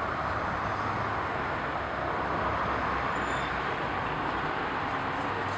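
Steady, even rush of distant road traffic with a low hum underneath.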